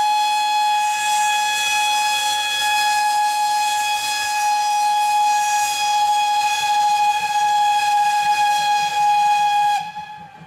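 Steam locomotive whistle blowing one long, steady note with a hiss of steam, cutting off suddenly near the end.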